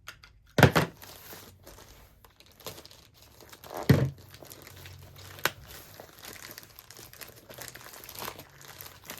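Packaging being opened by hand: crinkling and tearing of wrapping and tape, with two heavy thumps, about a second in and about four seconds in, and a sharp click midway.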